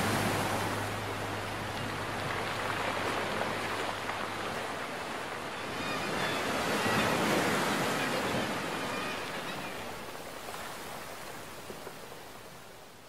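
Ocean surf washing onto the beach: a steady rushing wash that swells about halfway through, then fades away. A low held hum dies out in the first few seconds.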